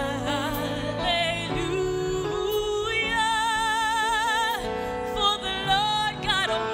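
Gospel worship music: a lead vocalist sings long notes with a wide vibrato over steady held chords.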